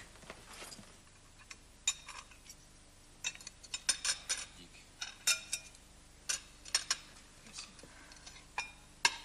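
Dishes and cutlery clinking as they are handled on a table: a string of irregular light knocks and chinks, some with a short ring.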